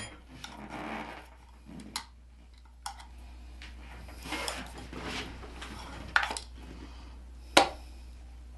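Small hard parts of a kitchen timer and GoPro mount being handled and fitted together: rustling with scattered sharp clicks and light knocks, the loudest near the end.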